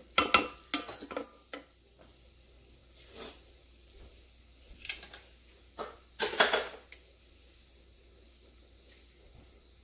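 A cooking utensil knocking and scraping against the Instant Pot's inner pot while onions and shallots are stirred: a cluster of light clicks and scrapes at the start, short scrapes around three and five seconds in, and a longer scrape a little past six seconds in.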